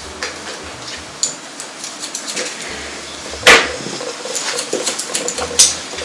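Hairdressing scissors snipping wet hair: a run of small metallic clicks, with a sharp louder click about three and a half seconds in and another near the end.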